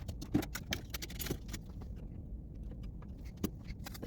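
Light metallic clicks and clinks from hands working small metal parts of a pinball display's lamp socket and bracket: a quick cluster in the first second and a half, then one more click near the end.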